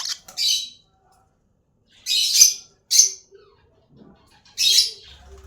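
Small pet parrots calling: about five short, high, harsh calls spread over a few seconds, the longest a little past two seconds in.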